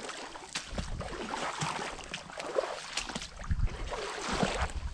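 Footsteps wading through shallow standing swamp water and brush: irregular sloshing and splashing with small knocks and thuds.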